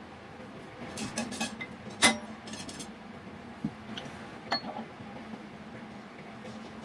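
Handling noises at a wood lathe: the big wooden log being set down and the metal chuck being handled. Scattered clicks, one loud knock about two seconds in, and a few light metallic clinks, one ringing briefly, around four and a half seconds, over a steady low hum.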